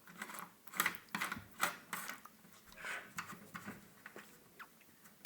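Irregular small clicks, taps and light scrapes as the parts of an AKAI EWI 4000s electronic wind instrument are handled during disassembly.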